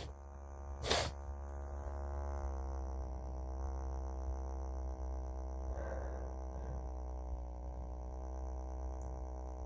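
Small electric vibrator held against the outside of the nose, buzzing steadily with a low hum from about a second in, its pitch wavering slightly. A short sharp burst of noise comes right at the start and again about a second in, and a faint breath is heard around six seconds.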